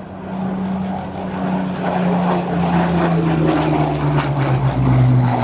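Rolls-Royce Merlin V12 engine of a Second World War fighter in a display flypast. The engine note falls steadily in pitch as it grows louder.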